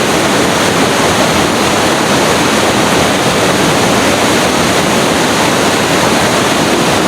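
Waterfall: a loud, steady rush of falling water, unbroken throughout.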